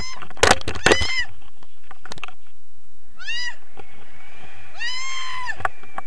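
Two high-pitched squeals from a person's voice, each rising and then falling, the second longer, over steady wind noise on the microphone of the camera held up in flight. A few sharp knocks come in the first second.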